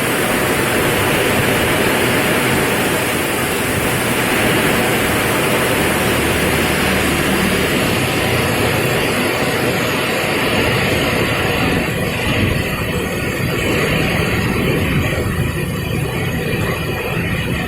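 Heavy rain pouring down in strong wind, a loud steady roar of noise; the hiss eases somewhat in the last few seconds while a low rumble remains.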